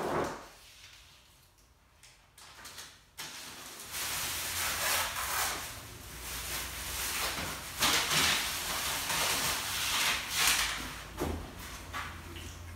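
Masking paper rustling and crinkling in irregular rushes as it is pulled off a painted car hood, over a low steady hum that starts about three seconds in.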